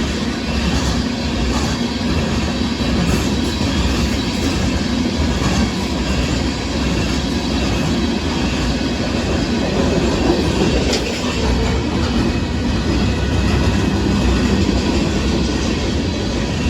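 CSX freight train of gravel hopper cars rolling past: a loud, steady rumble of wheels on rail with scattered clacks over the rail joints.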